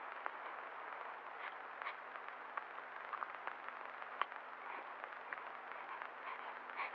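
Steady hiss with a low hum and many scattered faint clicks and crackles: the surface noise of an old film soundtrack.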